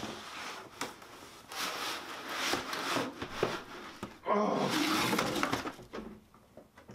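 Cardboard and foam packing scraping and rustling as a boxed laptop is pulled out of its shipping carton.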